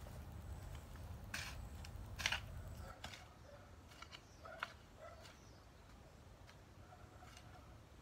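A garden hoe chopping into loose soil in a few separate strokes, the loudest about two seconds in, with lighter ones over the next few seconds.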